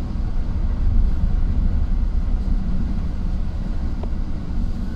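Steady low rumble of a vehicle driving, heard from inside the cabin: engine and tyre noise on the road.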